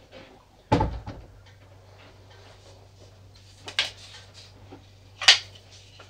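Plastic router and cable connector being handled: a knock about a second in, then small clicks, the sharpest near the end as the dish cable's plug is worked.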